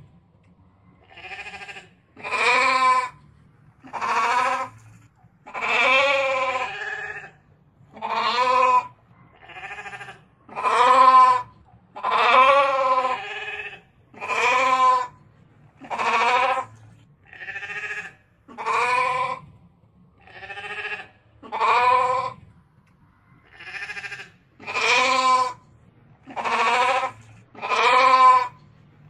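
Rams (male sheep) bleating over and over, one wavering, quavering call about every second and a half.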